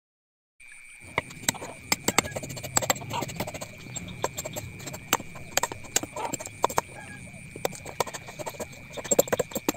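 A broad-bladed knife chopping and paring the husk off a coconut on a wooden chopping block: sharp knocks and scrapes at an irregular pace, several a second, starting about half a second in. A steady high tone runs underneath.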